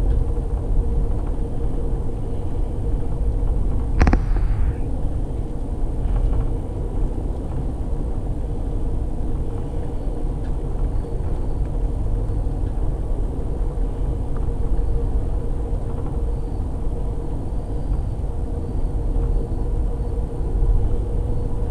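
Amtrak Texas Eagle passenger train running at speed: a steady rumble of wheels on track with a constant hum, and one sharp knock about four seconds in.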